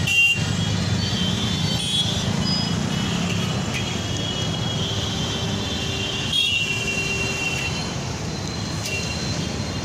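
Auto-rickshaw engine running steadily on the move, with street traffic noise around it.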